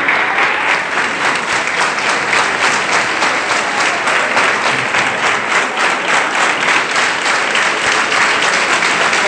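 A crowd clapping steadily: dense, fast, irregular claps with no pauses.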